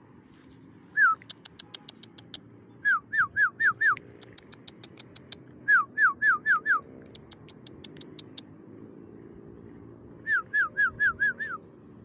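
Clear whistled calls: short falling notes in quick runs of four or five, three runs in all, with fast runs of sharp, high ticks in between.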